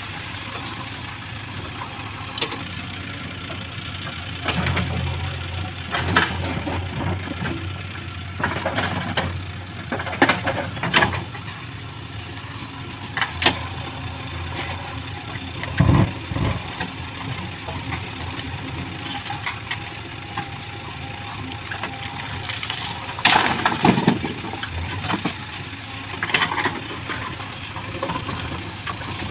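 JCB 3DX Plus backhoe loader's diesel engine running while its backhoe bucket digs into dry earth. Irregular scraping, knocks and clanks of the bucket and arm come through it, with a heavy thud about halfway and a run of louder clanks past three-quarters.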